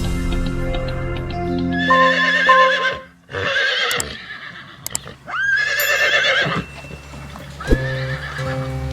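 A horse whinnying about four times, each call a quavering, wavering cry, over background music with sustained notes.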